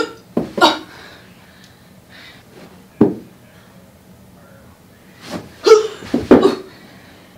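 A young woman's short gasps, grunts and yelps, with dull thumps of her body landing on a carpeted floor as she drops into kneeling backbends and tumbles out of them. The sounds come in a burst at the start, a single thump about three seconds in, and a cluster of yelps and thumps near the end.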